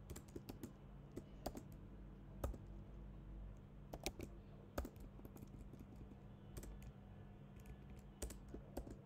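Faint typing on a computer keyboard: irregular, scattered keystrokes over a low steady hum.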